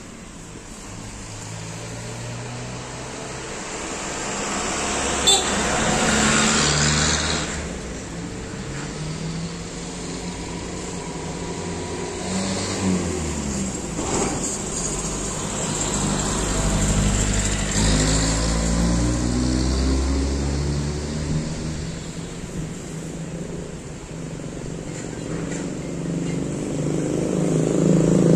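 Electric motors of a Toyota Estima Welcab power swivel seat running as the loaded seat lifts and swivels back into the van, the hum shifting pitch several times as each movement changes, with one sharp click about five seconds in.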